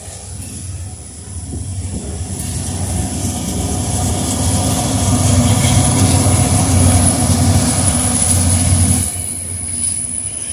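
Freight train of covered hopper cars rolling past, its wheels rumbling on the rails. The rumble grows louder through the middle and drops off suddenly near the end.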